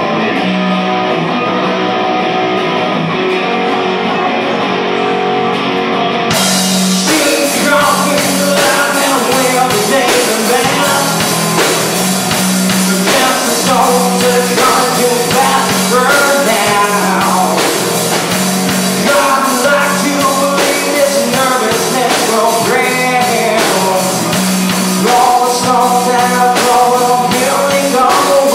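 Live rock trio playing: electric guitar, bass guitar and drum kit. The sound thins out at first and fills out about six seconds in, when the drums and cymbals take up a steady beat.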